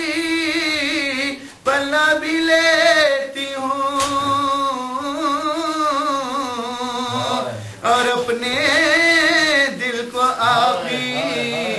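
A man's unaccompanied voice chanting an Urdu marsiya, an elegy for Husayn, in long, drawn-out melodic phrases with wavering held notes. He breaks briefly for breath about a second and a half in and again near eight seconds.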